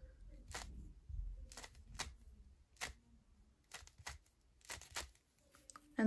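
A plastic 3x3 puzzle cube's middle layers being turned through a series of slice moves, giving a string of faint, irregularly spaced clicks and clacks.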